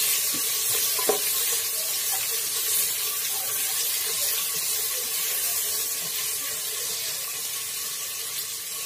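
Sliced onions sizzling in hot oil in a pressure cooker, a steady hiss, with a few light knocks and scrapes of a spatula stirring them.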